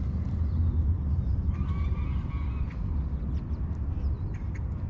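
Wind buffeting the microphone in a steady low rumble. About one and a half seconds in, a waterfowl gives a honking call, and a few faint clicks come near the end.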